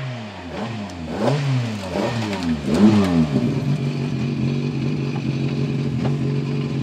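Rally car engine with its revs rising and falling several times over the first three seconds as the car slows to a stop, then idling steadily.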